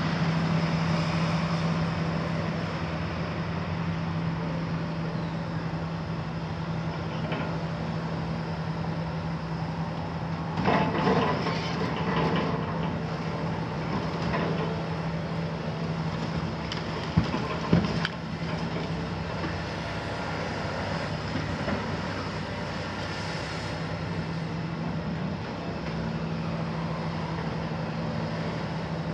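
Hitachi demolition excavator's six-cylinder Isuzu diesel running at a steady drone as its hydraulic shear works the concrete, with a cluster of crunching impacts about eleven seconds in and two sharp knocks around seventeen to eighteen seconds.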